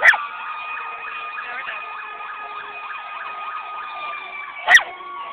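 Emergency vehicle sirens sounding together, one held tone slowly falling in pitch over another pulsing quickly up and down. A short sharp bark cuts in right at the start and again near the end.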